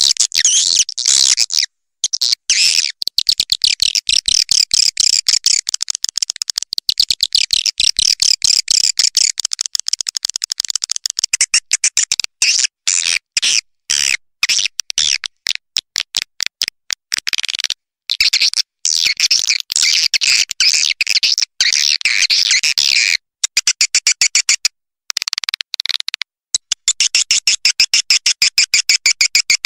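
Recorded swiftlet calls: dense, rapid, high-pitched chirping and twittering, of the kind played as a lure sound for swiftlet houses. It is cut by several short, abrupt silent gaps, typical of an edited, looped track.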